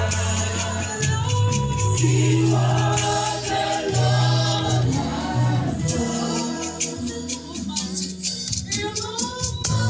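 Gospel choir singing a praise song over bass and percussion, with regular percussion strokes in the second half.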